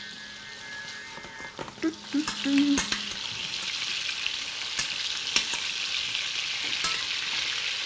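Lamb loin searing skin-side down in a hot steel pan: a steady sizzle that grows louder about two seconds in. A few light metal clicks from the basting spoon against the pan.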